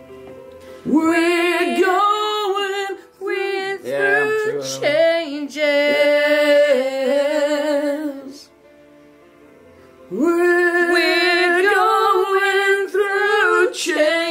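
Woman singing two slow, sustained ballad phrases with vibrato, the first about a second in and the second after a short pause near 10 s, over a quiet keyboard backing track.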